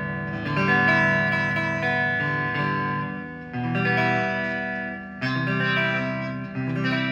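G&L Legacy Tribute electric guitar on its neck single-coil pickup, played through a clean amp tone: chords strummed four times and left to ring. The bass tone knob is turned down to 1, so the low end is cut and the sound is very compressed to the mid and high end.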